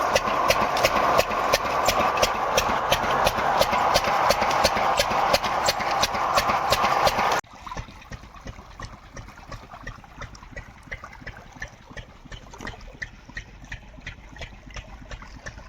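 Engine running with a steady knocking beat, about four or five a second. About halfway through, the sound drops suddenly and the same beat carries on much quieter.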